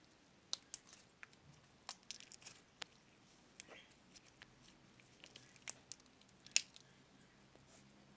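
Slime being worked by hand, giving scattered small sharp clicks and pops, the loudest two near the end.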